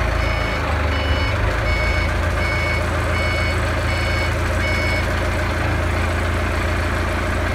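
Forklift reversing alarm beeping steadily, about once every 0.7 seconds, then stopping about five seconds in, over the low steady hum of the forklift's running engine.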